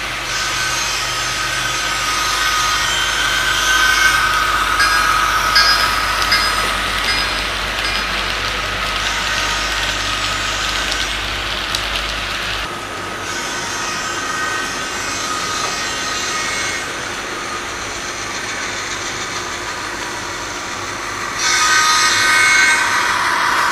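Frateschi HO-scale G12 model diesel locomotive with a digital sound decoder, its small speaker playing a running diesel engine sound as the train moves along the track. It gets louder near the end.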